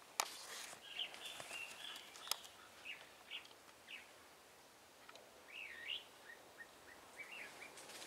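Small birds calling with short high chirps and call notes, including a quick up-and-down whistled note about two-thirds of the way through followed by a run of short chirps. Two sharp clicks, the loudest sounds, come near the start and about two seconds in.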